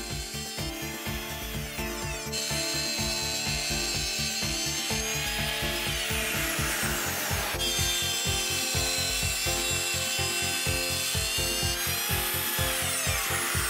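Craftsman router on a Sears Craftsman Router Crafter cutting a spiral groove into a turning wooden blank. The rough cutting noise comes in about two seconds in, under background music with a steady beat.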